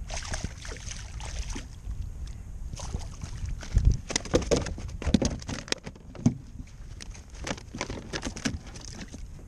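Clicks, knocks and rustles of fishing gear being handled in a plastic kayak, with one heavy thump on the hull a little under four seconds in.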